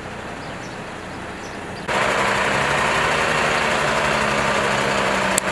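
Steady rumble of an idling vehicle engine that jumps abruptly louder about two seconds in, with a single sharp click near the end.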